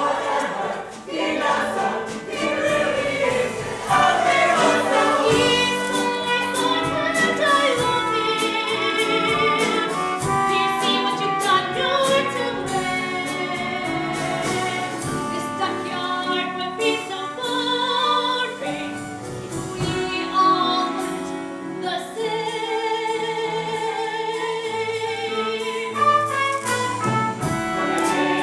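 A stage cast's ensemble singing a musical-theatre number with accompaniment: several voices in harmony, with long held notes sung with vibrato.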